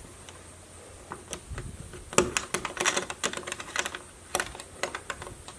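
A quick, irregular run of sharp clicks and light knocks, about a dozen, starting about a second in.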